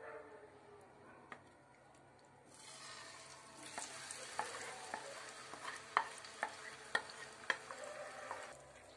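Marinated chicken landing in hot oil in a frying pan and sizzling, the hiss starting about two and a half seconds in. A wooden spatula knocks sharply against the bowl and pan a dozen or so times as the chicken is scraped in.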